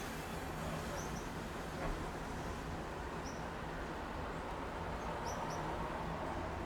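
Steady city traffic rumble with a low hum, with a few short, high bird chirps about a second in, around three seconds and in a quick cluster around five seconds.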